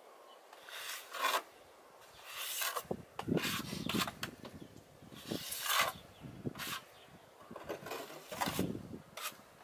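Plastering trowel scraping stucco mortar across a wall in a series of irregular rasping strokes, about one every second or so.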